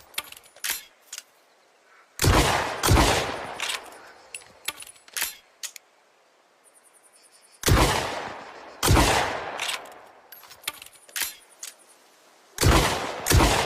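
Sawn-off double-barrelled shotgun (lupara) fired in three pairs of blasts, each pair well under a second or so apart, every shot trailing off in a short echo. Short sharp clicks sound in the gaps between the pairs.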